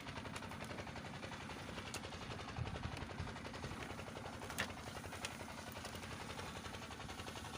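A small engine running steadily with a fast, even chugging, and a few light clicks and knocks over it.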